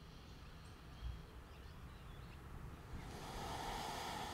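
Quiet outdoor background with a soft rushing noise that swells about three seconds in and fades away.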